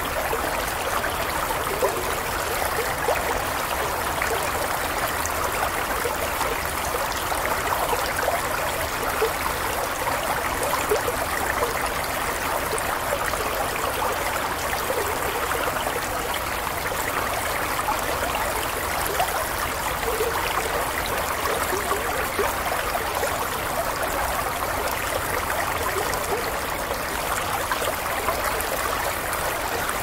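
Small rocky stream flowing over and between boulders in little cascades: a steady rush of water with many small splashes.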